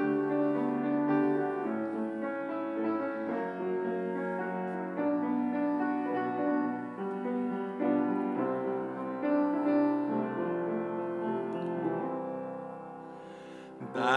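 Upright piano playing a hymn introduction in chords, growing softer over the last couple of seconds before the singing comes in.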